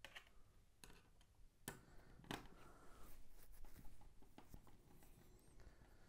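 Faint handling sounds: a few small clicks and scrapes of hands and a small screwdriver on a laptop's metal bottom cover while its screws are taken out, the clearest click about two and a half seconds in.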